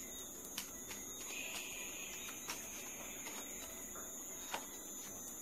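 Three soft clicks of playing cards being handled and laid down, about two seconds apart, over a faint steady hiss with a thin high tone.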